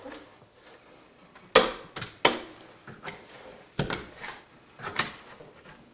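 Hard card squeegee swiping across wet security window film on glass, pushing water and air bubbles out from under it: about half a dozen short, sharp strokes, starting about a second and a half in.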